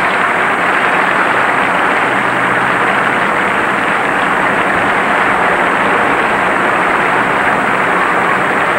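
Large tennis stadium crowd applauding steadily, a sustained ovation for the player who has just won the championship.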